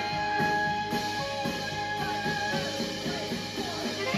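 Saxophone playing live over a band accompaniment, with one long held note through the first two seconds before the line moves on.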